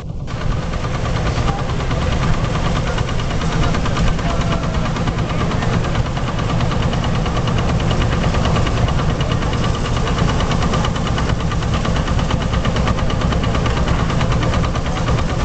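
Vintage wooden threshing machine at work with its straw elevator, belt-driven, giving a steady, loud mechanical drone with a fast, even rattle.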